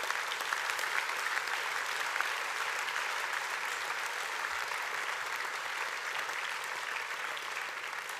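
An audience applauding steadily in a hall, a dense patter of many hands clapping that fades slightly near the end.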